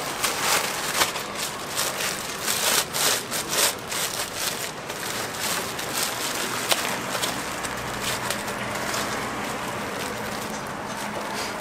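Thin plastic bag crinkling and rustling as a slab of puffed rice cake is pushed into it and the bag is twisted shut. The crackling is dense in the first few seconds and softer after that.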